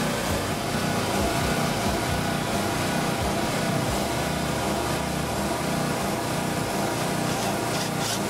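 A steady mechanical drone, like a motor or engine running, that holds without a break.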